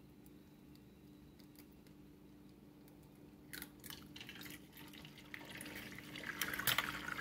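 An egg cracked on a frying pan's rim, a few sharp clicks a little past halfway, then dropped into hot oil, which starts to sizzle and grows louder over the last two seconds.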